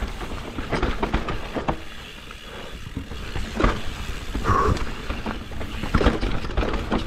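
Mountain bike riding down a rough dirt trail: wind rushing over the microphone, with sharp knocks and rattles from the bike over bumps a few times.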